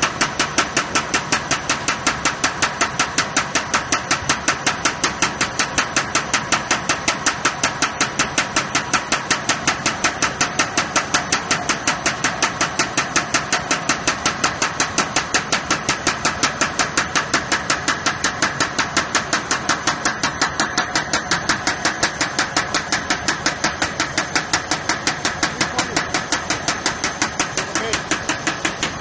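Single-knife sheeter running, its knife cutting in a fast, even rhythm of knocks over the steady running noise of the machine.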